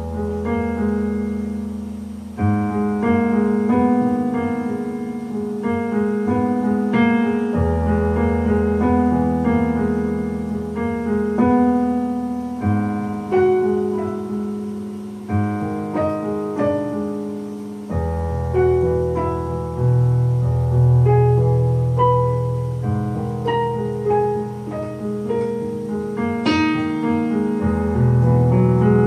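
Electronic keyboard played with a piano sound: a melody with chords over held bass notes, the bass changing every several seconds.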